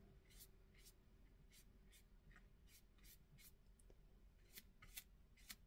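Faint, brief scratchy swishes of a 1-inch flat synthetic brush laying acrylic paint onto paper, a dozen or so quick irregular strokes.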